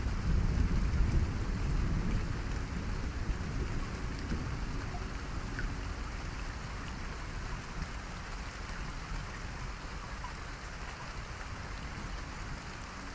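Steady rain-like hiss with a low rumble, strongest in the first couple of seconds, growing gradually quieter.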